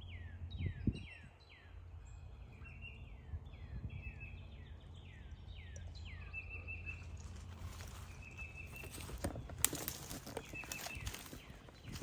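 A wild songbird singing: a fast series of downward-slurred whistled notes for about six seconds, then short buzzy notes every second or so. Near the end there are a few sharp clicks and rustles, over a steady low rumble.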